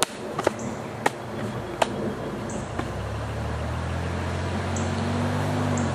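Several sharp taps in the first three seconds, then the low, steady drone of a distant engine, most likely a passing motor vehicle, sets in about three seconds in and carries on.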